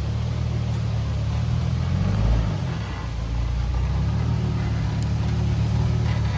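Lifted Jeep Wrangler's engine running steadily at low revs as it crawls through a rutted dirt trail, swelling briefly about two seconds in.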